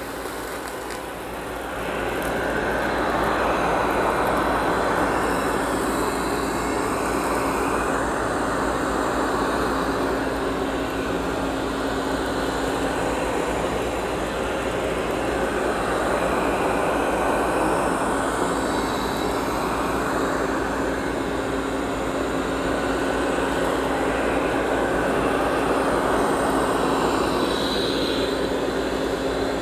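Amarey A800 robot vacuum running steadily as it drives through a pile of spilled cat litter and cat food, with a constant motor hum that gets louder about two seconds in.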